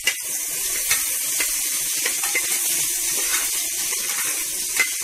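Sliced onions sizzling steadily as they fry in hot ghee in a pressure cooker, with a metal spatula clicking and scraping against the pot several times as they are stirred.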